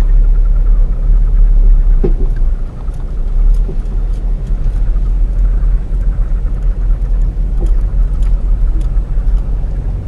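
Steady low rumble of a car driving slowly, heard from inside the car.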